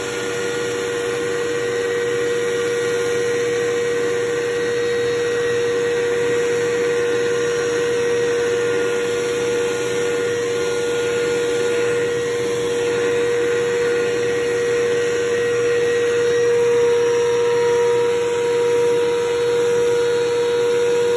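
Vacuum cleaner running steadily, its hose and brush nozzle drawn across carpet, with a constant motor hum and whine.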